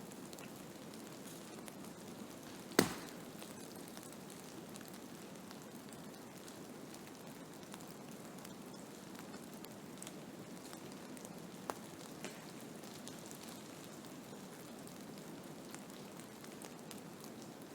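Blizzard ambience: a steady hiss scattered with faint small ticks, with one sharp tap about three seconds in and a fainter one near twelve seconds.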